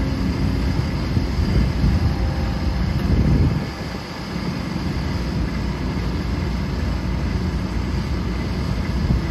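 Kobelco SK200 excavator's diesel engine running under hydraulic load as it curls its bucket and folds its arm in; a steady rumble that is loudest in the first few seconds and eases a little about four seconds in.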